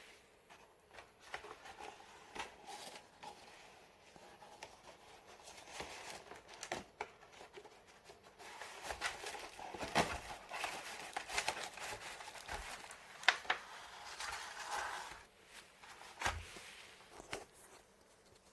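Product packaging being handled: irregular rustling and crinkling of plastic or paper, broken by sharp clicks and knocks, with a louder clatter about ten seconds in and a sharp knock about three seconds later.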